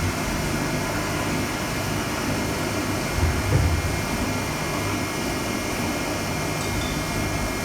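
CNC mill running steadily while power-tapping 3/8-inch holes in steel at about 1,000 RPM: a constant machine hum with fixed whining tones, and a brief low surge about three seconds in.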